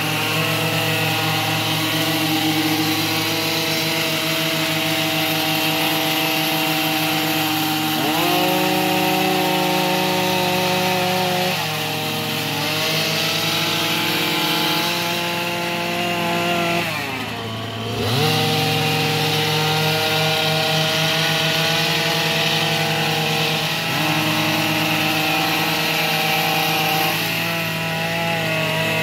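Gas-powered hedge trimmer running steadily while cutting a hedge, its engine speed rising and falling with the throttle and dropping briefly about two-thirds of the way through before picking up again.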